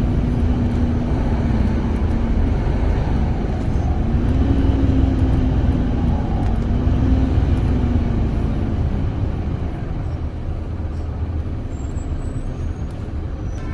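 A city bus's engine and road noise heard from inside the cabin: a steady low rumble with a humming engine tone. The tone steps up in pitch about four seconds in, slowly falls and fades out around nine seconds, after which the rumble runs a little quieter.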